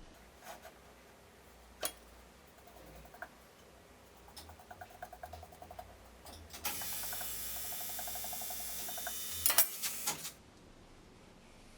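Workshop clicks and a short run of rattling ticks, then a cordless drill running steadily for about three and a half seconds and stopping with a few sharp knocks.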